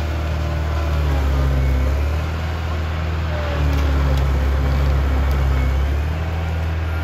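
Engine running with a steady deep drone that swells twice, with faint pitch changes drifting over it.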